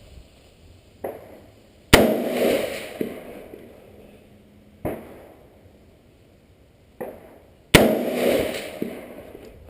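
Two shots from an AR-15 pistol firing .223/5.56, about six seconds apart, each a sharp crack followed by a trailing echo that fades over about a second.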